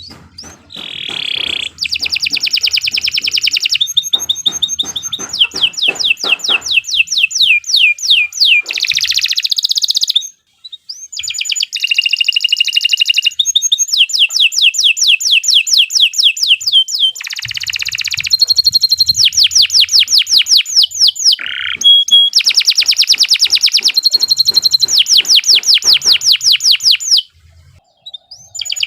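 Domestic canary singing long, rapid trills: runs of quick repeated notes, about ten a second, in phrases several seconds long, with brief pauses about ten seconds in and near the end.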